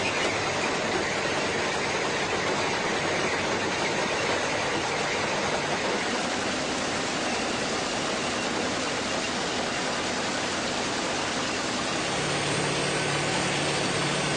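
Heavy railway track maintenance machinery running: a steady, dense mechanical noise without breaks. A low steady hum comes in near the end.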